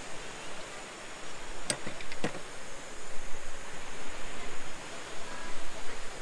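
Jetboil camping stove being lit: three or four sharp clicks of its push-button igniter about two seconds in, over a steady hiss.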